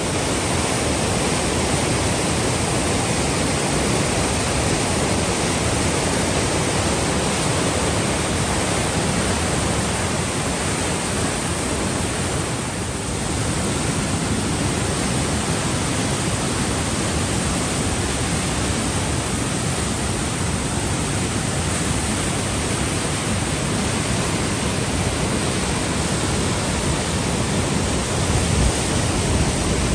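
Waterfall or cascading stream: a loud, steady rush of falling water.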